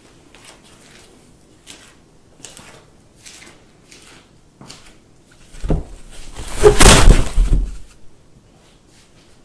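Light scratching and tapping of a cat's paws on a cardboard wall, then a loud rattling bump lasting about two seconds, starting a little past halfway.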